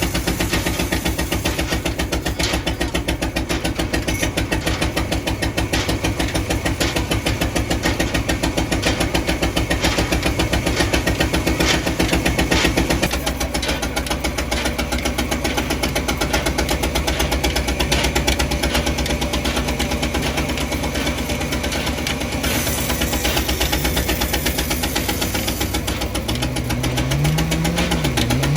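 Sawmill machine's engine running steadily with a fast, even pulse. Its tone changes about halfway through, as the load on the machine shifts.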